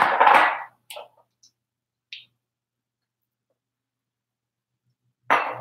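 A woman's voice briefly at the start, then a few faint clicks, then about three seconds of dead silence in which the sound cuts out completely, before her voice comes back at the very end.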